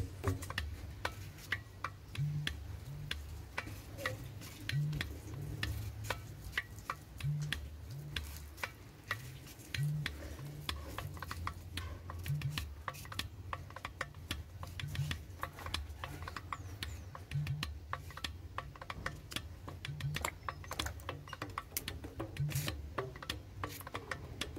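A small knife scraping and cutting the peel off green cooking bananas: a steady stream of small, irregular clicks and scrapes, over a low, intermittent rumble.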